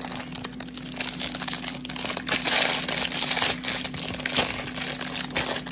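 Crinkling and rustling of squishy-toy packaging being handled and pulled open by hand, most busy a little past the middle.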